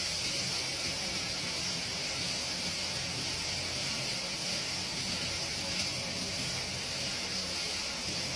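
Steady hissing sizzle of vegetables stir-frying in a hot wok over a gas burner, with a faint low hum underneath.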